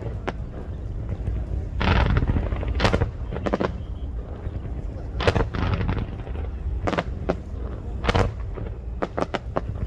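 Fireworks going off: a dozen or so sharp bangs at irregular intervals, some with a short crackling tail, over a steady low rumble.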